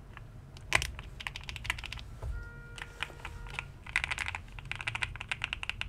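Mechanical keyboard switches on a GMK67 keyboard clicking and clacking as they are worked by hand: scattered sharp clicks, one loud one near the start, then a fast run of clacks in the second half.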